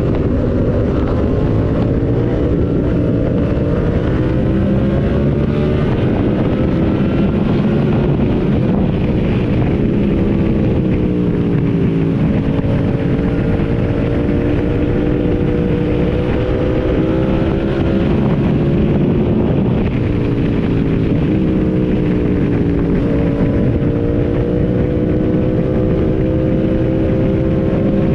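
A motorcycle engine running under way with a steady rush of wind and road noise. Its pitch sags and climbs slowly as the throttle and revs change, with dips about twelve seconds in and again near the twenty-second mark.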